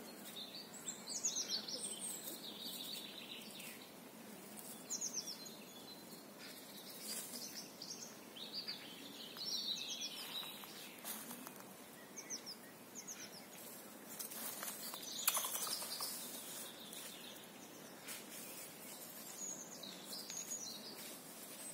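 Wild songbirds singing, short falling chirping phrases every second or two over a steady background hiss, with one sharp click about two-thirds of the way through.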